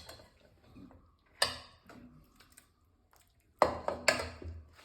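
A serving spoon knocking and scraping against a cooking pan and a bowl while thick masala is scooped across. There are a few sharp clinks and taps, one about a second and a half in and a louder pair near the end.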